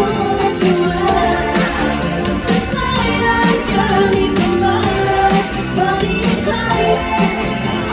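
Upbeat K-pop song sung live by a female group over a loud backing track.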